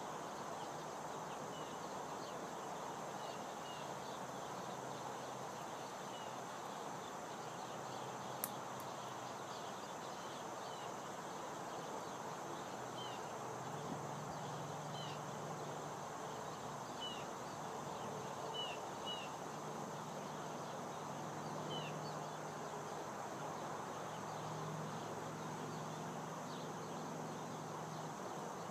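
Field ambience dominated by a steady insect drone, with short high chirps scattered through it. A faint low hum joins in the middle stretch, and there is a single sharp click about eight seconds in.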